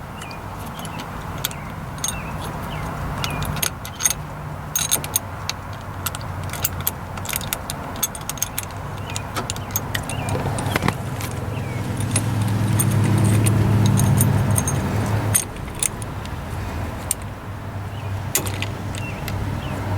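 Small metal parts clinking and tapping as washers and bolts are fitted to a homemade steering-wheel puller, over a low steady hum that grows louder for a few seconds past the middle.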